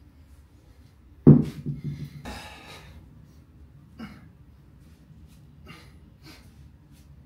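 Forceful, rhythmic exhalations of a man swinging a 100-pound kettlebell: one long hiss of breath and then short puffs, one per swing. About a second in comes a loud, sharp knock with a short low ringing after it.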